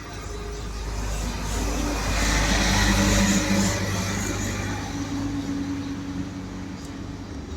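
A motor vehicle running past, a low rumble with a rushing noise that swells to its loudest about three seconds in and then slowly fades.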